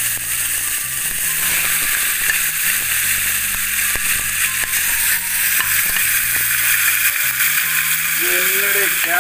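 Spice-marinated prawn heads sizzling steadily as they fry in hot coconut oil in a nonstick frying pan. They are stirred with a spatula near the end.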